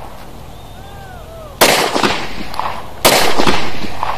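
Two 9mm pistol shots from a Glock 19, about a second and a half apart, each a sharp crack followed by a decaying echo; the second one's echo lasts longer.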